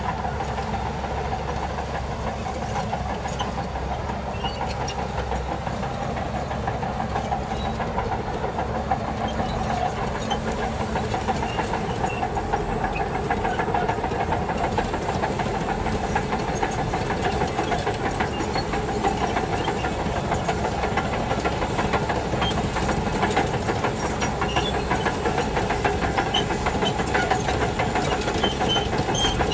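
Shantui DH17C2 crawler bulldozer's diesel engine running steadily, with scattered light clanks, getting a little louder in the second half.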